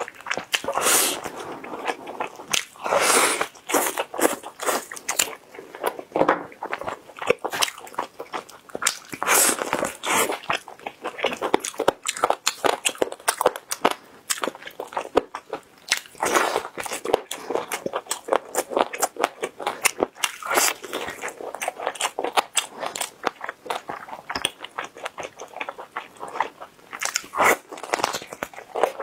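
Close-miked eating of a charcoal-grilled pork rib: repeated bites into the glazed, charred meat and chewing, with many sharp clicks all through.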